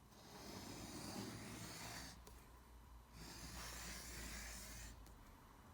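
Two slow, faint breaths close to the microphone, each a soft rush of about two seconds.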